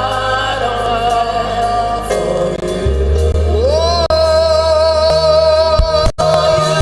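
Live gospel worship song: a voice holding long, wavering sung notes over steady bass notes, with one note sliding up into a sustained tone about three and a half seconds in.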